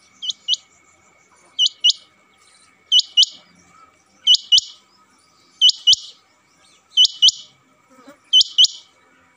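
Male rain quail calling: seven sharp double notes, repeated evenly about once every 1.3 seconds.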